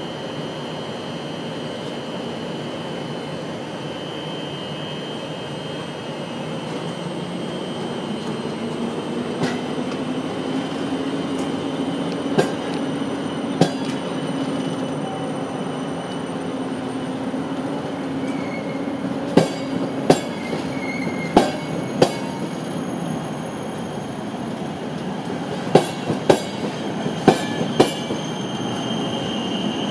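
Electric-hauled PKP Intercity passenger coaches pulling out and gathering speed, a steady rumble with a slowly rising hum. From about a third of the way in, the wheels clack over rail joints, more often and in pairs of beats as the train speeds up.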